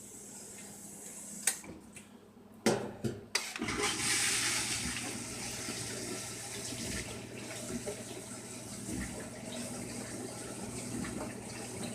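Old Frigidaire dishwasher with a mechanical timer running a normal wash: a few knocks in the first few seconds, then from about four seconds in a steady rush of water inside the tub over a low steady hum from its motor.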